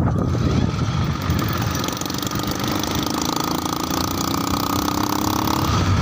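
Motorcycle riding on a rough dirt road: the engine runs steadily under a thick haze of wind and road noise, its note rising slightly before it changes near the end.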